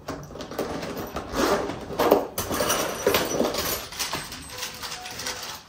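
Someone rummaging for screws, with irregular rustling and small clinking and clattering of handled hardware.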